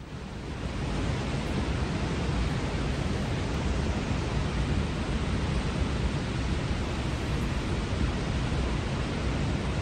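Beas River in flood, a heavy, steady rush of fast muddy floodwater. It swells up over the first second and then holds.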